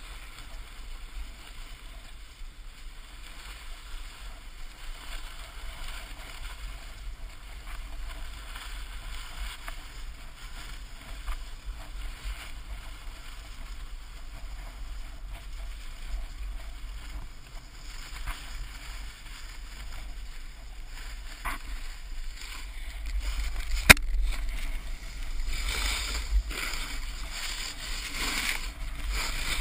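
Snowboard sliding and scraping over packed snow, with wind buffeting the microphone of the pole-mounted GoPro. The scraping grows louder and harsher over the last quarter, and a single sharp knock comes just before it does.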